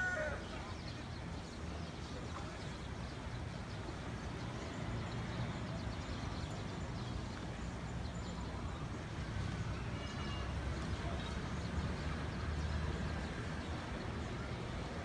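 Steady outdoor ambience by the sea: a low rumble and hiss. It opens with the last moment of a rooster's crow, falling away, and a few faint bird chirps come about ten seconds in.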